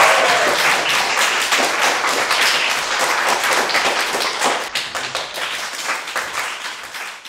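Audience clapping, a dense patter of many hands that thins and dies away near the end.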